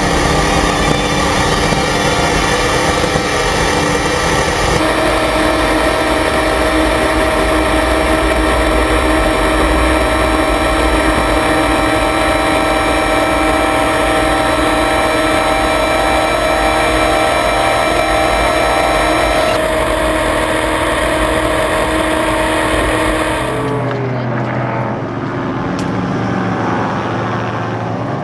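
Racing jet boat's engine running hard at a steady high speed, heard on board with the rush of water, changing in tone at a couple of cuts between camera positions. Near the end it gives way to quieter riverbank sound with voices.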